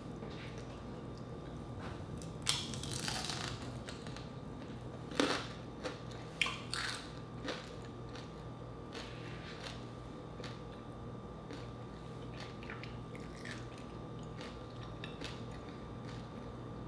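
Close-up eating sounds: crispy fried meat crunching and crackling as it is bitten and chewed, loudest in a run of crunches a few seconds in, then softer chewing clicks.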